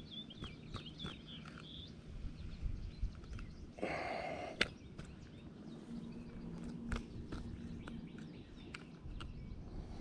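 Small birds chirping in the first two seconds, with scattered light clicks and a brief rustle about four seconds in as a caught bass is held and unhooked by hand.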